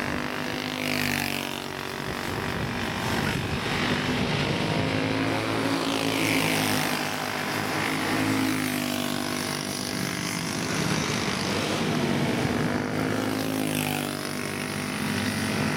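A pack of racing karts with four-stroke Briggs & Stratton Animal engines running at race speed, the engine note rising and falling in pitch as several karts come and go.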